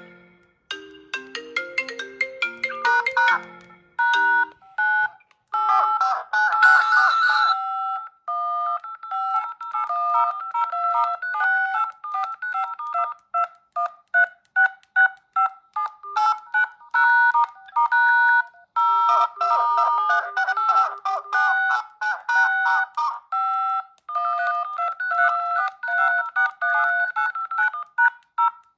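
Smartphone incoming-call ringtones. A low stepping melody gives way about three seconds in to a higher melody of short, quick tones that repeats over and over, with a brief noisy swell around six to seven seconds in.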